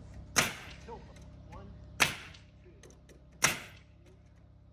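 Pneumatic nail gun firing three times into roof framing timber, each shot a sharp crack, about a second and a half apart.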